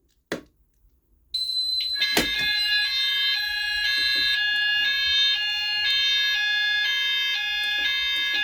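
Fire alarm sounders going off. A single steady high tone comes on about a second in, then with a click a second sounder joins with an alternating two-tone sound that switches pitch about twice a second, and both keep sounding.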